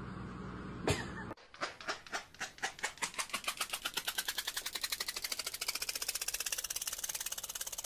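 A single click, then a long run of sharp clicks that speeds up steadily from a few a second to a fast rattle, with a faint rising tone.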